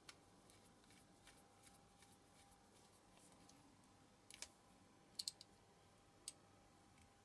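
Faint clicks of a small precision screwdriver turning a screw in the metal baseplate of a diecast toy car, with a few sharper clicks a little past the middle.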